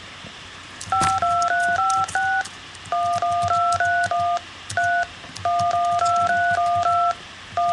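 Skype dial-pad touch tones (DTMF): short two-tone beeps from keys pressed one after another in runs of five or six, with short pauses between the runs, picking out a simple tune on the keypad.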